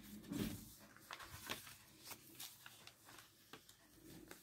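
Faint rustling and a few light clicks of paper and card being handled, the pages of a handmade paper scrapbook album.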